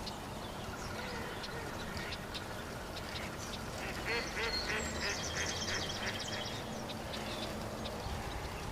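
Ducks quacking, with a quick run of repeated quacks about halfway through.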